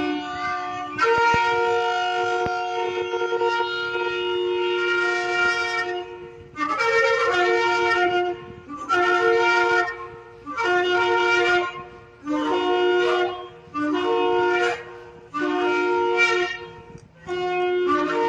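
Shofar blowing: one long held blast, then a run of shorter blasts, each stepping between two pitches.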